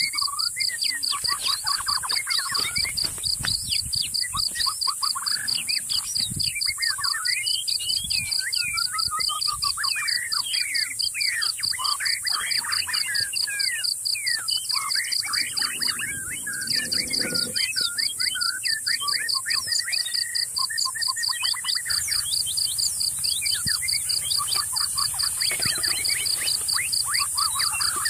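Many birds chirping and calling over a steady, rapid high-pitched pulsing and a constant high hiss: a tropical outdoor chorus of birds and insects.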